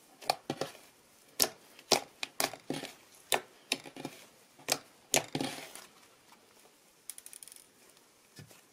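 Hands squeezing, poking and stretching a soft slime made with glue, instant snow powder and shaving cream, giving sharp pops and clicks through the first five or six seconds, then a quick run of fine crackles about seven seconds in as it is pulled apart.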